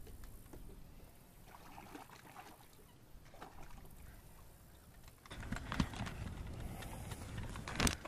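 Quiet water and light wind around a small fishing boat, then from about five seconds in a run of knocks and clicks as gear is handled in the boat.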